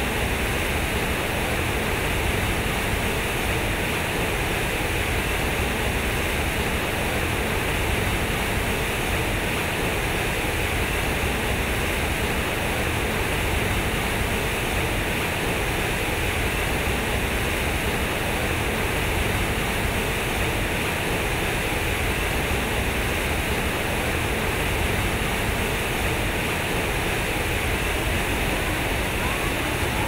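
Fountain water pouring from square concrete spouts and falling into its pool: a steady, unbroken rush and splash.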